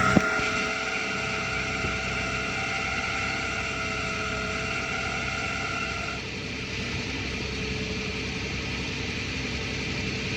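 A 2009 Toyota Tacoma's 4.0 L 1GR-FE V6 idling with a loud high-pitched squeal of several steady tones. The squeal's main tone drops out about six seconds in, leaving a fainter, higher whine over the idle. It is an intermittent squeal, worst at idle and when cold, whose source the owner cannot pin down: the water pump, the new alternator and the power steering pump all carry it evenly through a stethoscope.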